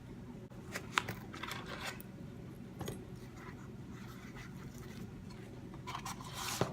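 A few light clicks and small scrapes of a metal razor handle being handled and turned over, with a short rustle near the end.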